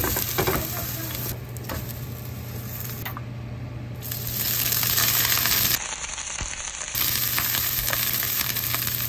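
Hot oil sizzling in a frying pan, with a metal spatula clinking against the pan at the start; the sizzle grows louder about four seconds in as whole green onions are laid into the oil for a scallion pancake.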